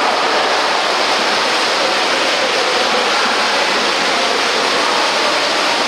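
Steady wash of splashing water from water polo players swimming and tussling in a pool.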